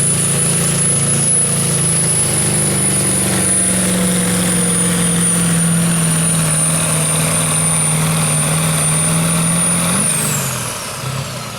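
Competition pulling truck's engine held at high, steady revs under load with a thin high whine over it; about ten seconds in the throttle is let off and the engine note and the whine wind down together, the end of the pull.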